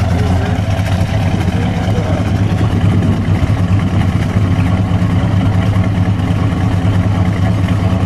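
The 440 Magnum big-block V8 of a 1968 Dodge Dart GSS idling steadily and smoothly, heard at the exhaust tips.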